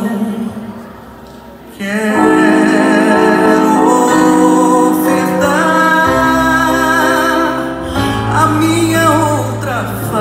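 Live pop ballad music: a band holding sustained chords, with long, wavering sung or played notes. It dips to a brief quieter moment near the start.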